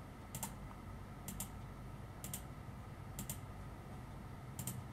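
Faint computer mouse-button clicks, five of them about a second apart, each a quick pair of clicks, over a low steady hum.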